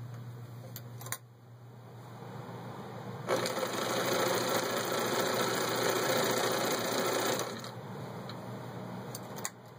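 Bernina Record 830 sewing machine stitching through six layers of denim: it runs quietly at first, speeds up about three seconds in and sews fast and steadily for about four seconds, then slows. A click sounds near the end.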